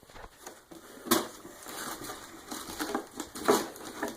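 Plastic being handled, crinkling and rustling, with a few sharp crackles about a second in and again around three and a half seconds in.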